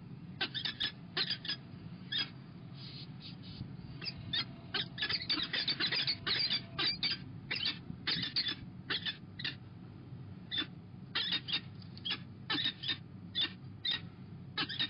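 Peregrine falcon nestlings giving rapid, high, thin begging cheeps while being fed at the nest scrape. The calls come in quick runs, thickest for a few seconds in the middle.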